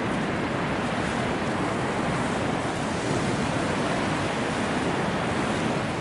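Ocean surf washing steadily, an even rush of water with no single wave standing out.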